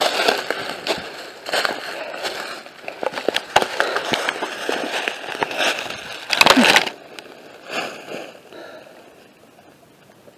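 Footsteps crunching through dry leaf litter and pine needles, with rustling of clothing and the handheld camera. The loudest moment is a dense scrape and rustle about six and a half seconds in as the camera is brought down to the ground. After that it goes much quieter.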